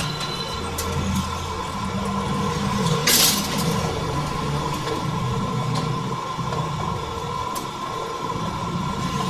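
Metal lathe running with a steady machine hum, winding heavy wire into a coil spring, with a brief harsh burst about three seconds in and a few light ticks.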